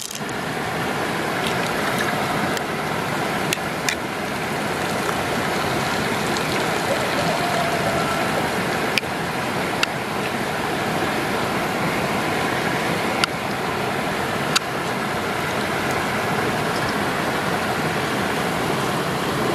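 Steady rush of flowing water, with a few small sharp clicks scattered through it.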